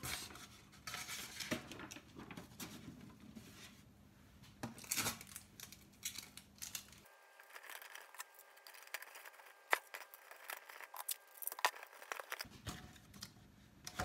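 Sheets of paper rustling and crinkling and sellotape being pulled and torn, in short irregular bursts with a few light clicks and taps, as a folded paper roof is taped onto a cardboard box.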